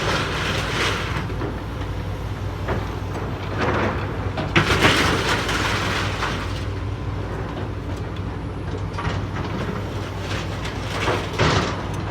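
Heavy excavator diesel engines running steadily while a grapple claw handles scrap metal, with bursts of metal scraping and clanking; the loudest comes about halfway through, opening with a sharp bang, and another near the end.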